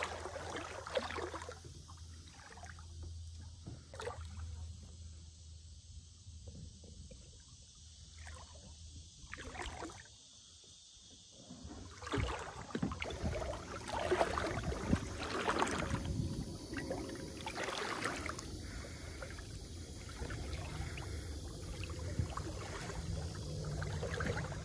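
Water splashing and sloshing around kayaks and people moving through a shallow spring run. The splashing is light for the first half and grows louder and busier about halfway through.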